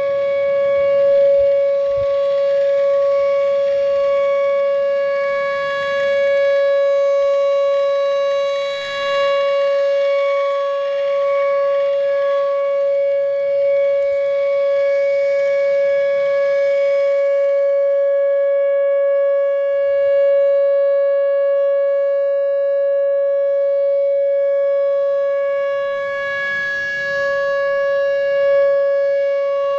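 Whelen WPS 4004 electronic outdoor warning siren sounding its steady 560 Hz alert tone, loud and unwavering in pitch, with the upper overtones swelling and fading a few times.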